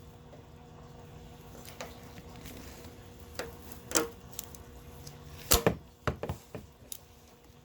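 Scattered clicks and knocks of hand tools working on the radiator's bottom mounting screws, the loudest a pair of sharp knocks about five and a half seconds in.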